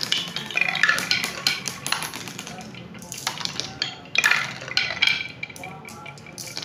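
Glass marbles rolling round a plywood spiral marble-run track, rattling and clacking against the wooden rails and each other in rapid clicks, with louder clusters of knocks about a second in and again around four seconds in.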